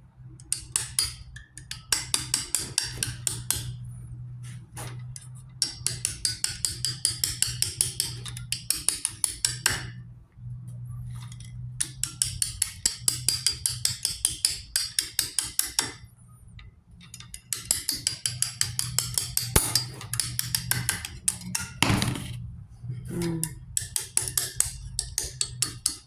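Quick metal-on-metal tapping, several taps a second in runs of a few seconds with short pauses between: a retaining ring being tapped down into place on a Mack truck power divider, using an old wedge.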